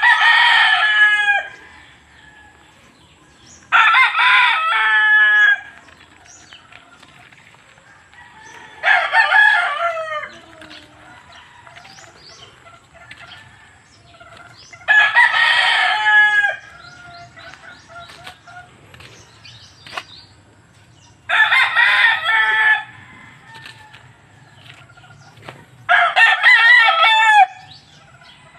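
Gamecock roosters crowing: six full crows, each about a second and a half long, spaced roughly five seconds apart.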